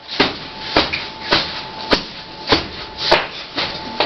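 A steady shaker-like beat of rustling strokes, a little under two a second, over a faint held tone, in the manner of a background music track.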